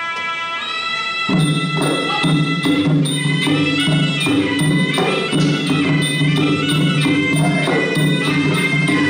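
Traditional Khmer boxing music: a wind instrument playing a sustained melody, joined about a second in by steady low drum beats and a light metallic tick about twice a second.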